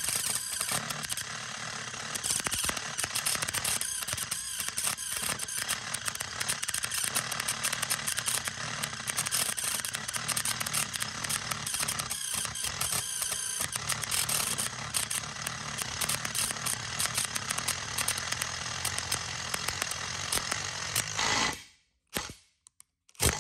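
A power drill running an M35 cobalt hex-shank drill bit through quarter-inch steel flat bar, with a dense rattling chatter as the bit cuts. It stops about 21 seconds in, and a brief burst of it comes again just before the end.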